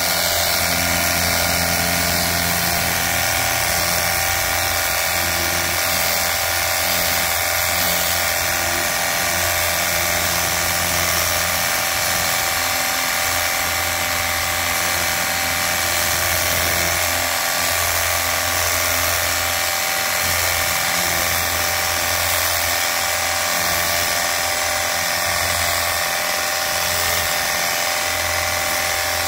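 Cordless battery-powered pressure washer running: the small electric pump motor gives a steady whine with a hiss over it, unchanging in level.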